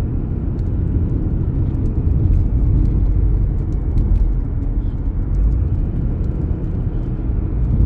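Steady road and engine rumble heard inside a moving car's cabin, deep and even, with a few faint ticks.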